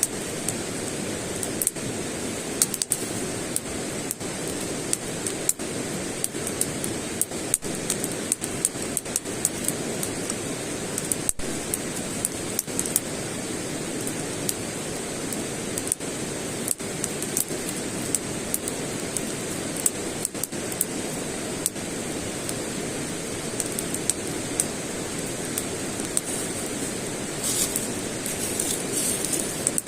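Campfire crackling: a steady rushing hiss with many irregular sharp pops and snaps.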